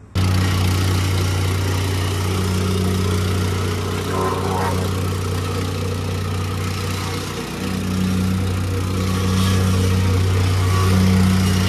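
An engine running steadily, with a brief dip about seven and a half seconds in and slightly louder running after it.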